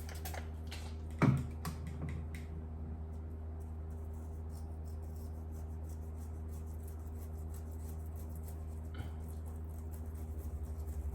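Steady low electrical hum, with a few sharp clicks and knocks in the first couple of seconds.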